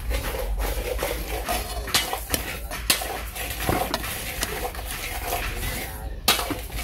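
Metal spoon scraping through cooked rice in a metal pot, with several sharp clinks of spoon against pot.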